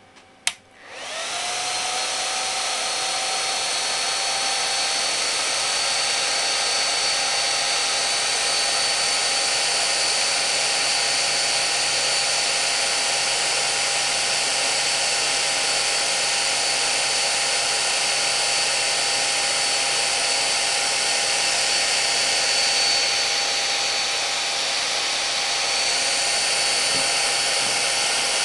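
A switch clicks, then the cooling fan of a high-power green laser module spins up within about a second and runs steadily, a loud even hiss with a faint high whine.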